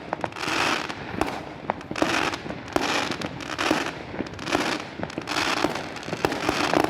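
Fireworks going off in quick succession: a string of hissing bursts about one a second, peppered with sharp cracks and pops.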